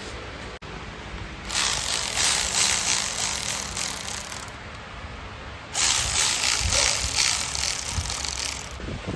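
Two long hissing blasts of pressurised spray, about three seconds each with a short gap between.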